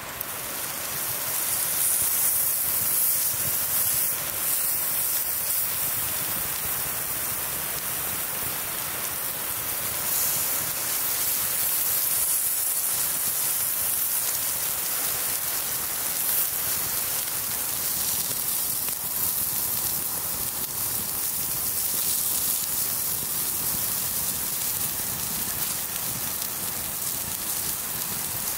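Food sizzling as it cooks over an open fire: a dense, steady frying hiss that swells over the first couple of seconds and then holds.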